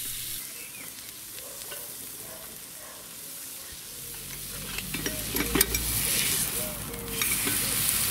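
Steak sizzling on a hot steel griddle disc over a wood-fired rocket stove. The sizzle grows louder about four seconds in, with a few sharp clicks and knocks of metal about five seconds in.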